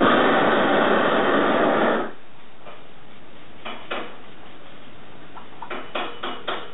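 Gas torch flame hissing loudly for about two seconds and then cutting off sharply, heating the bronze for a hot patina. A few light taps and clicks follow.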